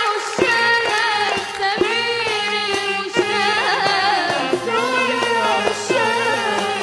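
Arabic music: a girl's voice singing an ornamented melody over an ensemble, with a darbuka and a riq (frame tambourine) beating a steady rhythm.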